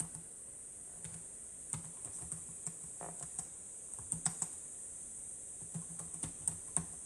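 Typing on a computer keyboard: irregular key clicks in short bursts, thickest around the middle and again near the end.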